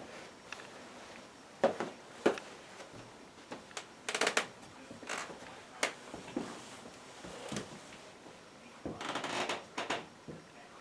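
A string of sharp knocks and short rattling clatters at uneven intervals, like objects being handled and set down.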